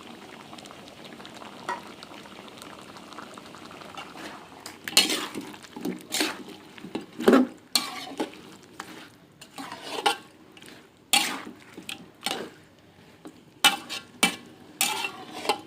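A curry simmers with a soft steady hiss in a pot, then a spoon stirs it, scraping and clinking irregularly against the pot from about five seconds in.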